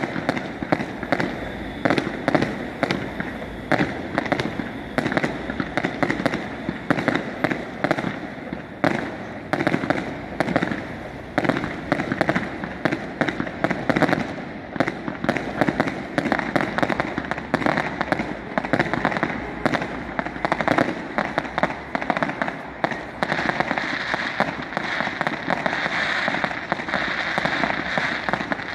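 Aerial fireworks bursting in quick succession: a dense, unbroken run of bangs and crackles. A steadier crackling hiss builds near the end.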